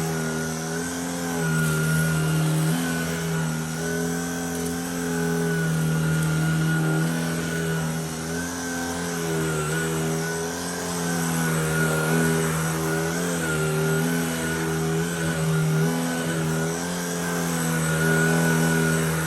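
Shark ICZ300UKT cordless upright vacuum cleaner running on its medium suction setting while pushed over carpet: a steady motor hum and whine whose pitch shifts slightly now and then as the load changes.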